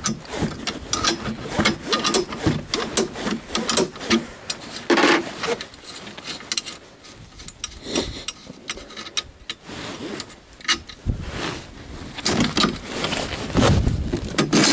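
A pair of 17 mm spanners working a bolt and nut loose on a steel frame: irregular metal clicks and scrapes as the wrench is turned and refitted, busiest in the first few seconds and again near the end. Thick jacket sleeves rub close by.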